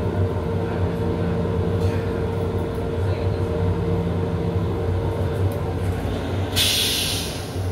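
Steady hum of an M7 railcar, heard from inside its restroom, with faint clicks as the plastic toilet seat is lifted. About six and a half seconds in, a loud hiss starts and lasts about a second: water spraying into the stainless steel toilet bowl as it flushes.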